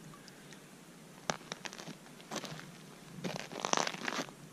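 Scattered short bursts of crunching and rustling, loudest in a cluster near the end: rubber boots shifting on packed snow and ice, with the rustle of a heavy winter jacket.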